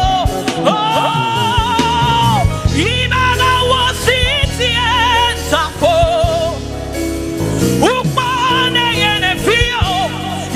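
Live gospel music: a woman's lead voice singing long held notes with vibrato over a band with bass and drums.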